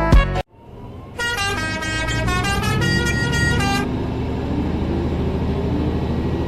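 A large vehicle's multi-tone horn sounds a short run of several stepped notes, lasting about two and a half seconds. Its engine runs underneath and keeps running after the horn stops.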